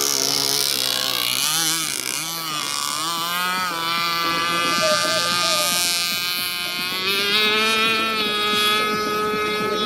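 A 30cc Zenoah two-stroke petrol engine on an RC boat running. Its pitch dips and rises a few times in the first couple of seconds, then holds steady and climbs slightly later on.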